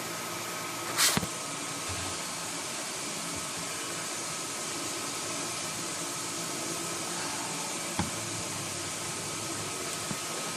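Steady rushing hiss with a faint high hum under it, broken by a sharp knock about a second in and a lighter tick later.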